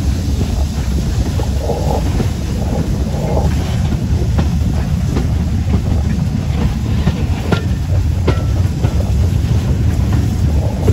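Steam locomotive Camelot, a BR Standard Class 5, and its train running along the line, heard from on board: a steady low rumble of wheels on rail, with a run of sharp clicks between about four and nine seconds in.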